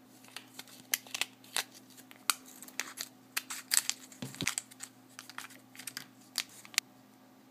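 Metallised anti-static bag crinkling and being cut with scissors as it is opened and handled, a run of irregular sharp crackles and snips.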